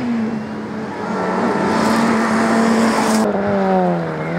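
Small hatchback rally car's engine running hard at high revs, with road and tyre noise building. About three seconds in, the sound cuts to a second rally car whose engine note falls and then swings up and down as it lifts off and takes a corner.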